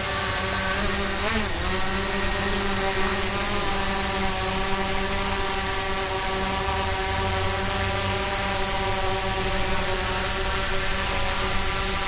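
DJI Mavic Pro quadcopter hovering close by, its four propellers giving a steady, high buzzing whine. The pitch wobbles briefly about a second in as the motors adjust their thrust.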